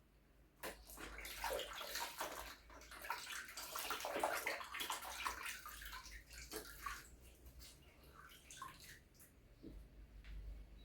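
Water running and splashing as something is washed. It starts about a second in and dies away after about six seconds into a few scattered small splashes and knocks.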